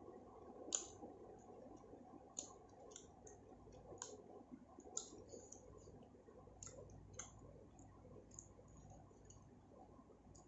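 Close-up mouth sounds of chewing chicken biryani: irregular small wet clicks and smacks, roughly one a second, the sharpest about a second in, over a faint low hum.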